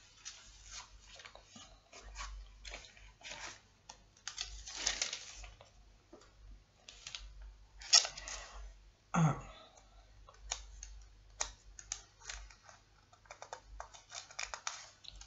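Scattered light clicks and taps with a few brief rustles, made by hands searching for a Bible passage at a desk; the loudest moments come around eight and nine seconds in.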